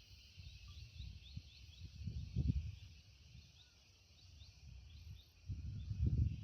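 Insects in subtropical forest making a steady high buzz, with a run of short rising chirps over it. Low rumbles come and go beneath, loudest about two and a half seconds in and near the end.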